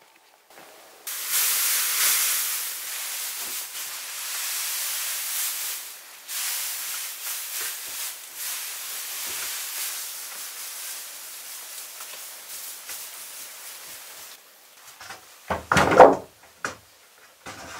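Dry wood shavings hissing and rustling as they are pushed and spread by hand between floor joists. The sound fades out in the last few seconds and is followed by one heavy wooden knock and a smaller thump.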